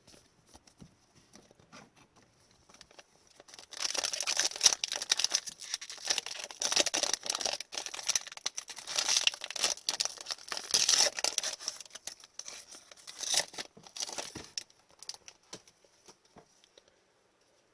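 Foil wrapper of a 2020-21 Upper Deck Series 1 hockey card pack being torn open and crinkled in the hands, a busy crackle of many small rips and crinkles. It starts about four seconds in and dies away near fourteen seconds.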